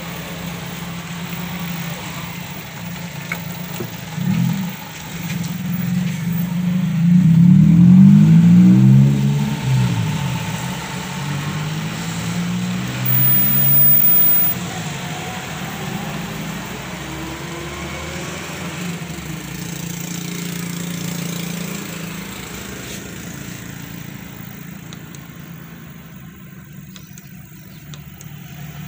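Motor vehicle engine running nearby, swelling and rising and falling in pitch as it revs and passes, loudest about seven to ten seconds in and again briefly around fourteen seconds, then fading.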